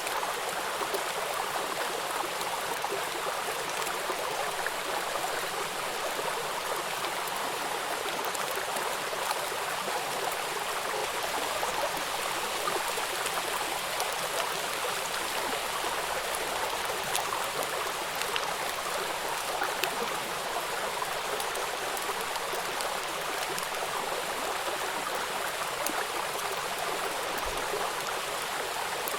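Steady rain falling, an even hiss with many faint scattered drop ticks.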